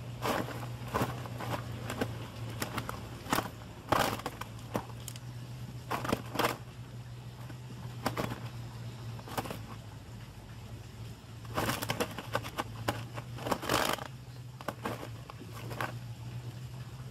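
Cast net and plastic sheeting crackling and rustling in irregular bursts as fish are picked out of the net by hand, with the densest handling near the middle and again toward the end. A steady low hum runs underneath.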